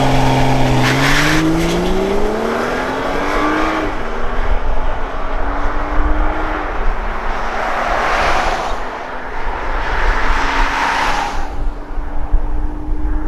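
BMW N55 turbocharged straight-six accelerating hard: the engine note climbs steadily for about four seconds, drops sharply at an upshift, then pulls on at lower revs. Two bursts of rushing noise come in during the second half.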